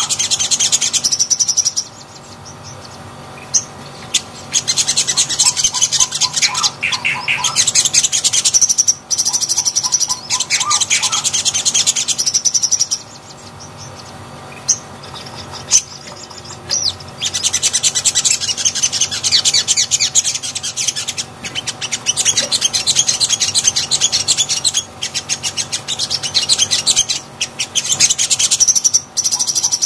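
Sunbird (sogon) singing in long bursts of rapid, high twittering, broken by a couple of quieter pauses a few seconds long.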